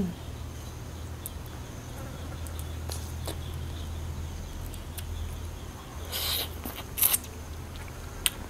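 Quiet eating sounds: fingers pulling the thin skin off small ripe nom khwai fruits and soft chewing, with a few short crackling noises in the second half, over a steady low hum.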